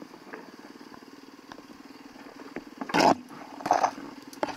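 2019 Yamaha WR450F's single-cylinder four-stroke engine running at low revs, with three short, loud bursts of throttle about three seconds in and near the end.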